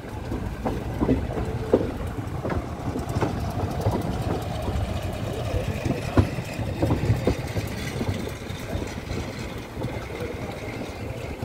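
Passenger train running out of a station, heard from a coach doorway: a steady low rumble from the wheels, with scattered sharp knocks as they cross rail joints and points.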